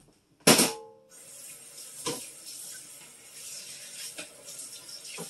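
Kitchen faucet running into the sink, with a loud ringing clank about half a second in and two lighter knocks as things are handled under the water.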